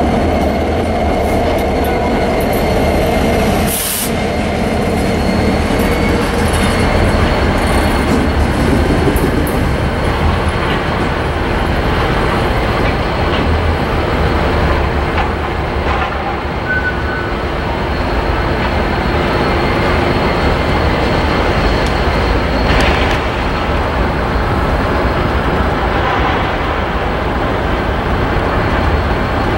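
A train's railroad cars rolling by on the rails: a steady, loud rumble of wheels on track, with thin high-pitched wheel squeal running through it.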